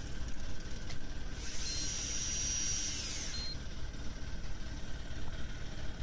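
Electric deep-drop fishing reel's motor whining for about two seconds, a thin high whine that falls in pitch as it stops, over a steady low rumble.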